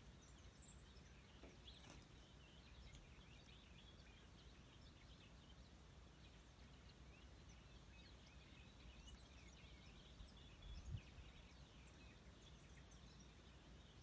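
Near silence with birds chirping faintly: a scatter of short high chirps, more of them in the second half, and a brief low bump a little after the middle.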